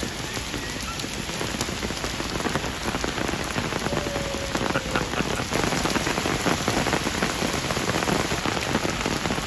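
Heavy cyclone rain falling steadily, a dense hiss made of countless separate drop ticks, growing a little louder about halfway through.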